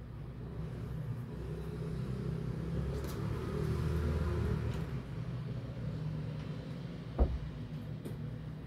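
A low rumble that swells about three to five seconds in and then eases off, with a single sharp knock a little after seven seconds.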